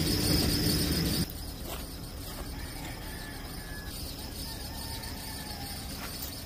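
Steady chirring of crickets. About a second in, the overall sound drops suddenly and the crickets carry on more faintly.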